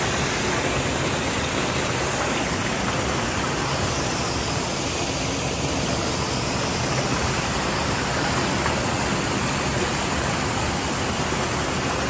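A tall waterfall pouring into a rock plunge pool: a steady, even rush of falling water.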